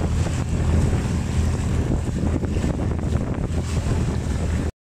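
Motorized outrigger boat under way: wind buffeting the microphone over a steady low engine drone and water splashing along the hull. The sound cuts off suddenly near the end.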